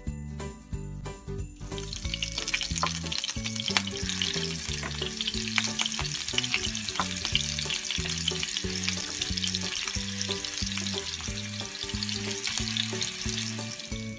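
Meatballs frying in hot oil in a small nonstick frying pan: a dense sizzle and crackle that starts about two seconds in and keeps going. Background music with a steady bass line plays throughout.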